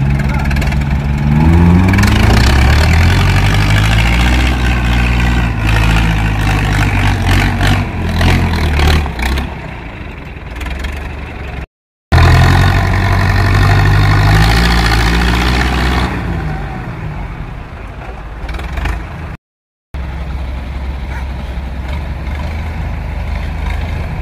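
John Deere tractor's diesel engine revving hard under load, pulling a loaded truck through deep mud. The revs climb, hold and ease off twice, then settle to a lower, steadier run near the end.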